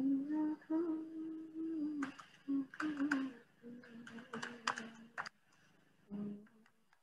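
A woman humming a tune softly in short held notes, with a few sharp hissy sounds in between.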